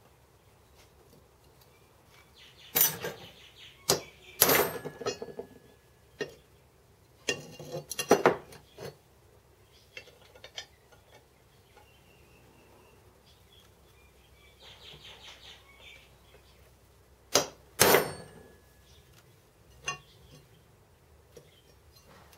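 Metal parts and tools being handled on a workbench, clinking and clanking in scattered groups of sharp knocks with short metallic ringing, with a softer rasping stretch around the middle.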